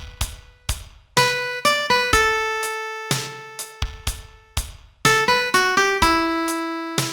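Piano playing a slow melody of single notes, each struck and left to ring and die away, over low bass notes.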